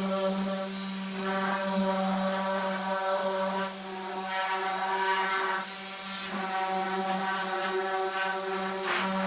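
Electric sander running steadily with 60-grit paper, the abrasive hissing against cherry wood; the hiss and the motor's high hum swell and ease a few times as the piece is pressed and shifted against the paper.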